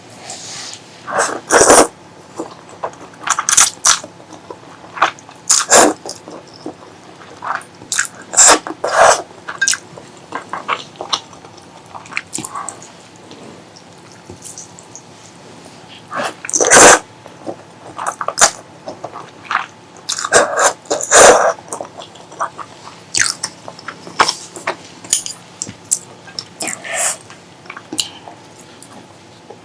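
Close-up eating sounds of a person biting and chewing food, in short irregular bursts with pauses between them. The loudest bites come about a third of the way in and again a little past the middle.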